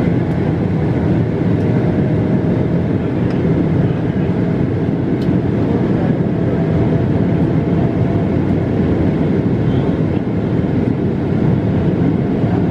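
Jet airliner cabin noise during the climb after takeoff: the engines and rushing air make a steady, low, even rumble, heard from a window seat over the wing.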